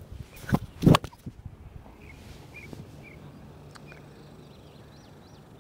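Golf pitching wedge shot: two sharp strikes about a third of a second apart, near the start, the second the louder. Faint bird chirps follow.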